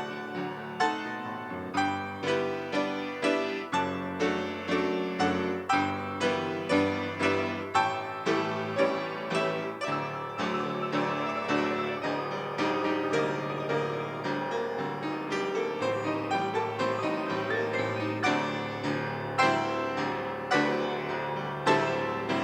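Piano playing, its notes struck in a steady rhythm, each one ringing and fading.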